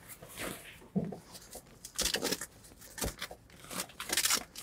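Seat cover fabric rustling and scraping in several short, scratchy bursts as a hand pushes and pulls the cover's flaps up under a truck seat.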